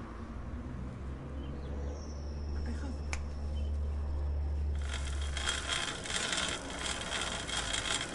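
Low rumble with a single sharp click, then from about five seconds in a bicycle chain and freewheel clicking rapidly and continuously.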